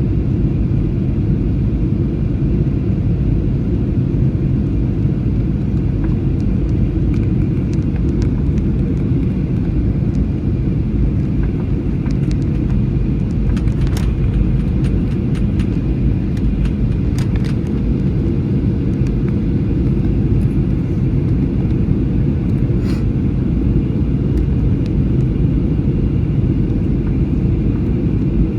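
Steady roar of a jet airliner's cabin noise, engines and rushing air heard from inside the cabin, deep and even throughout, with a few faint clicks now and then.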